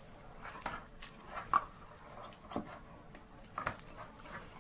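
A hand squeezing and kneading a stiff, sticky cornflour-and-water paste in a steel bowl, making a few soft, irregular squelches. The cornflour stiffens as water is worked into it.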